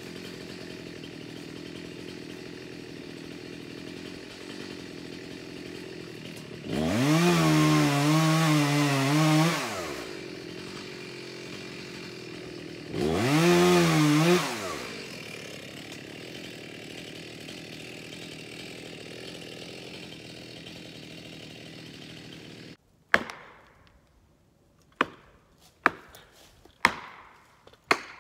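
Stihl chainsaw idling, then opened to full throttle twice for a few seconds as it cuts into a large hemlock trunk, its pitch wavering under load. Near the end the saw shuts off and five sharp knocks follow about a second apart, typical of a felling wedge being hammered into the cut.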